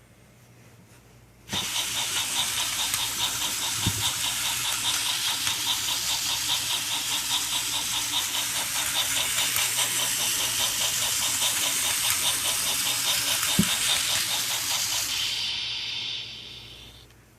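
Small electric motors and gearboxes of TrackMaster remote-control Thomas toy trains running on plastic track: a steady whir with a fast, even clatter. It starts suddenly about a second and a half in and fades out near the end.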